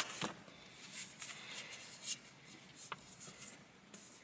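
Faint rustling of paper and a few soft ticks as a photo-print envelope is opened and the prints are handled.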